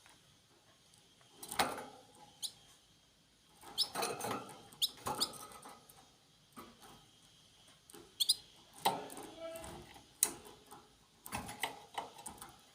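Small birds giving short, scattered chirps and squeaks, some as quick falling notes, mixed with light clicks and scuffs.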